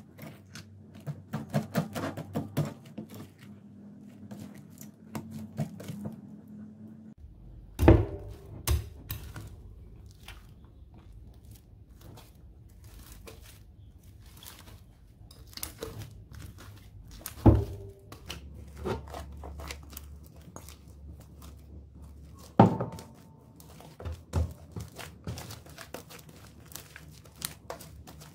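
Fluffy slime being stirred with a wire whisk in a glass bowl and then squeezed and pulled by hand: sticky crackling and squishing, with three loud sharp knocks of the whisk against the glass bowl.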